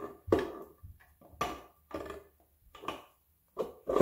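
Differential of a Honda PL3 manual transmission being worked down into its bearing in the aluminium case: a handful of sharp metal clunks, roughly a second apart.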